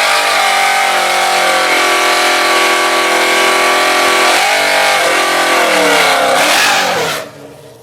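Race car engines at full throttle in a street drag race, pulling hard, with the engine note breaking at gear changes about four and a half and six seconds in. The sound fades quickly near the end as the cars pull away.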